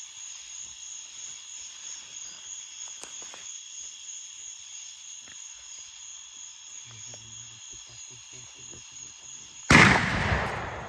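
A single shotgun blast near the end, sudden and loud, dying away over about a second.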